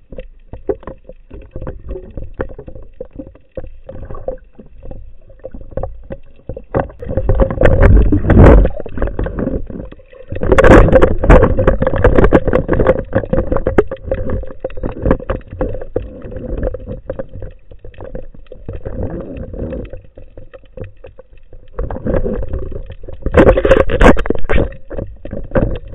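Underwater sound picked up by a camera on a speargun: water rushing and churning against the housing, with many clicks and knocks from the gun and gear being handled. It swells loud in several surges, over a faint steady hum.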